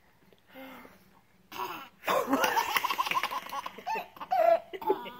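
A baby laughing: a couple of breathy gasps, then a long run of rapid giggles starting about two seconds in, and a few short giggles near the end.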